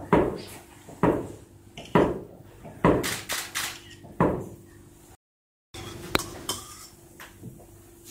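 A chef's knife chopping on a plastic cutting board: five firm strokes about a second apart. After a short break in the sound, a spoon clinks a few times against a steel bowl and a ceramic plate.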